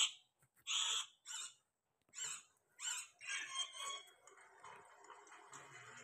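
Rose-ringed parakeets giving a series of short squawking calls, about five or six brief calls spaced out over a few seconds.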